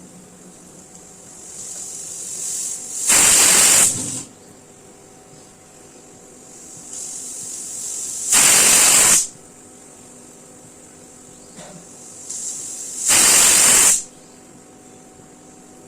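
Pressure cooker whistling three times, about five seconds apart. Each time the steam hiss builds for a second or so, then a loud, sharp blast of steam lasts about a second, the release that marks the cooker reaching pressure.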